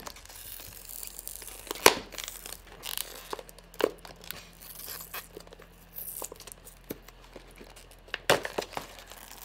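Snack packaging being torn open and crinkled by hand: irregular rustling with scattered sharp snaps and clicks, the loudest about two seconds in.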